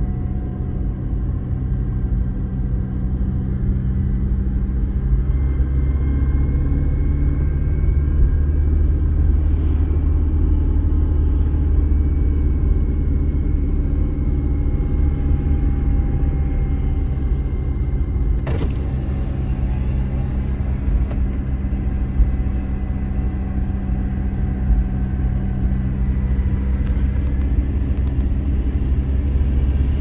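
Car driving on an open road, heard from inside the cabin: a steady low rumble of engine and tyre noise with a faint whine drifting slowly in pitch. A single brief click about eighteen seconds in.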